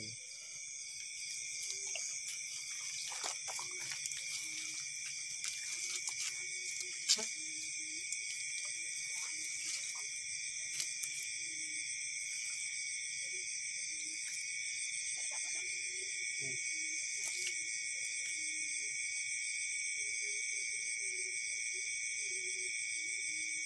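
Steady high-pitched chorus of night insects, several pitches sounding at once without a break, with scattered small handling clicks and one sharp knock about seven seconds in.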